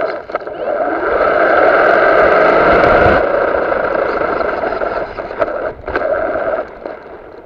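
Radio-controlled car driving on a gravel path: the motor whines steadily over the noise of the tyres on the stones, loudest in the first few seconds and dying down near the end, with a few short knocks.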